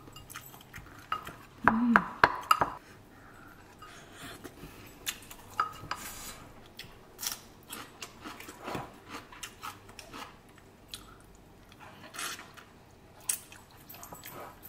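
Wooden spoon knocking and scraping in a ceramic bowl while eating, with a quick burst of loud knocks about two seconds in and scattered light clicks after, along with some chewing.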